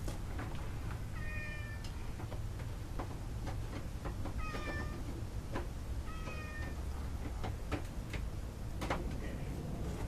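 Domestic cat meowing three times, each call under a second long and a few seconds apart.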